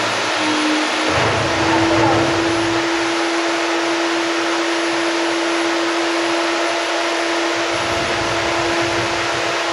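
An electric machine motor running steadily, a loud even hiss with a steady hum.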